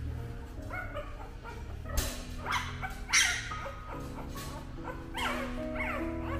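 Newborn puppies whimpering and giving short high squeals, several cries in a row with the loudest just past the middle, over background music with held notes.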